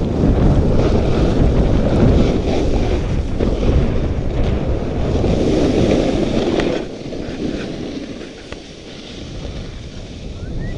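Wind rushing over the microphone of a camera carried downhill on skis, with the hiss of skis sliding on snow. It is loud, then drops markedly about seven seconds in.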